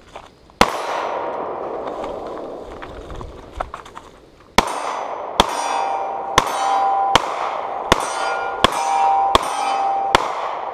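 Gunshots: one about half a second in, then a steady string of eight about three-quarters of a second apart starting near the middle. Each is followed by the ringing clang of a steel plate target being hit.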